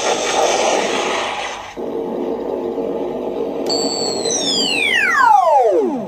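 Hasbro Spengler Wand's sound effects played loud through an external AUX speaker: a rough, noisy effect, then a whining tone that slides steadily down from high to low over about two seconds and stops.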